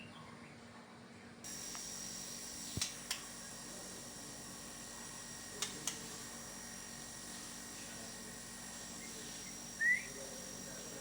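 White-rumped shama (Medan murai batu) giving a single short rising chirp near the end. Before it comes a mostly quiet stretch with a faint steady high whine and two pairs of sharp clicks.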